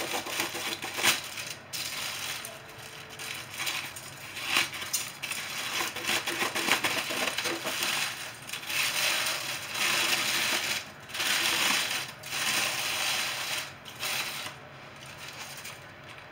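Aluminium foil and baking paper crinkling and rustling in irregular bursts, with a few sharp clicks, as the wrapping is cut with scissors and pulled open.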